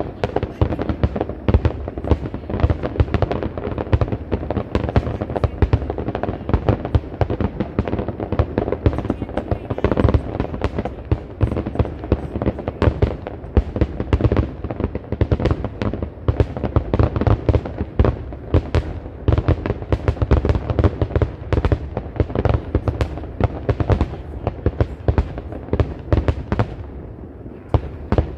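Aerial fireworks shells bursting in a rapid, continuous barrage of booms and crackles, many a second, which thins out near the end.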